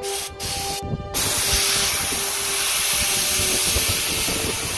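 Handheld steam cleaner spraying steam onto engine parts: a steady jet hiss that cuts out briefly a few times in the first second, then runs on unbroken.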